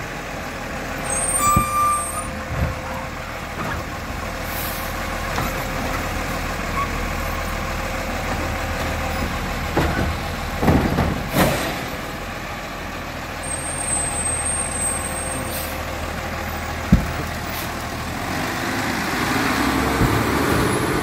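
Garbage truck's diesel engine running and pulling away, swelling in loudness as it drives past close by over the last few seconds. A few short hisses and clunks break in along the way.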